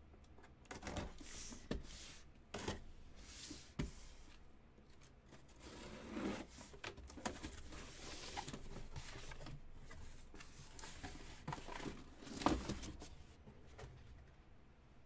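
A cardboard shipping case being torn open and its cardboard boxes slid out and set down in stacks: faint tearing, scraping and rustling of cardboard with scattered light knocks.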